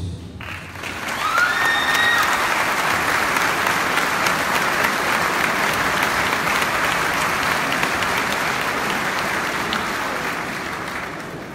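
Congregation applauding in a large church hall: the clapping starts about half a second in, swells quickly, holds steady, and fades away near the end.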